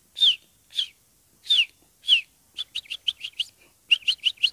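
A man imitating a sparrow's chirping with his mouth: short, high, falling chirps, at first single and spaced apart, then two quick runs of several chirps, one past the middle and one near the end.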